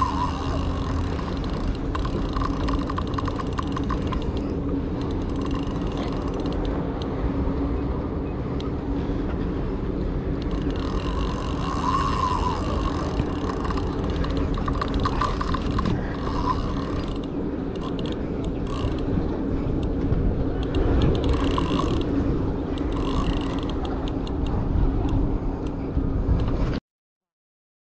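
Spinning reel's drag screaming as a hooked fish strips line off the spool, in repeated runs of rapid clicking, over wind rumble on the microphone. It is the sign that a fish has taken the bait and is running.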